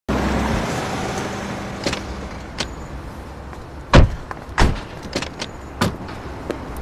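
A car running, fading away over the first couple of seconds, then sharp clicks and knocks of a car door being unlatched and swung open, the loudest about four seconds in.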